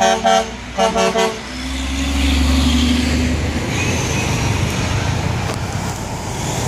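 A truck's air horn blasts twice at the start, in two short chord-like toots. A heavy truck's engine then drones low and steady for a couple of seconds as it pulls past, leaving road traffic noise.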